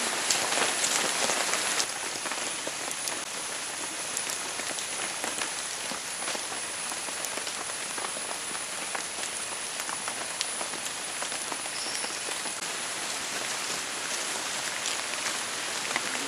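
Rain pattering on forest leaves: a steady hiss with many small scattered drop ticks, a little heavier for the first two seconds. A thin, steady high tone runs above it.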